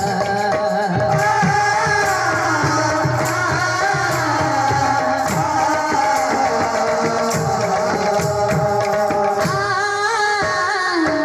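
Indian folk dance music: singing over held melodic lines, with a hand drum beating a steady rhythm.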